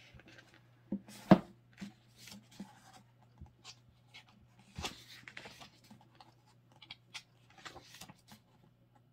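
Pages of a glossy photobook being turned by hand: the paper rustles and flicks, with a sharp snap about a second in and another near five seconds, over a faint steady low hum.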